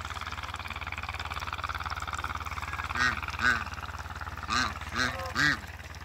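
African geese honking: five short, nasal honks in the second half, coming in quick succession.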